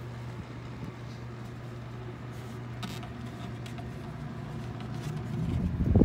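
Honeywell fan mounted on the lid of a homemade Igloo ice chest air conditioner running with a steady low hum. Near the end a louder rumble and buffeting sets in as the cooler lid is lifted.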